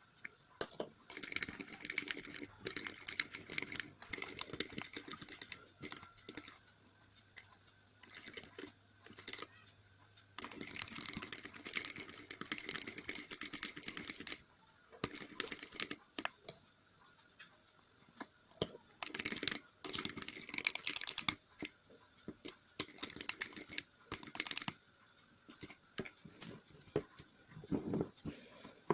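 A homemade glue-based slime mixture being stirred in a bowl. It comes in bursts of wet, sticky clicking and scraping, several seconds at a time, with pauses between them.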